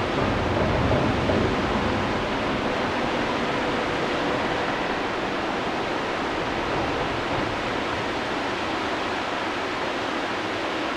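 Whitewater river rapids rushing steadily at a standing wave, a little louder for the first couple of seconds.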